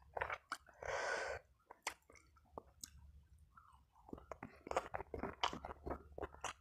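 Close-up chewing of fried fish and rice, with wet mouth clicks and smacks that come thickest in the second half. A short breathy rush about a second in.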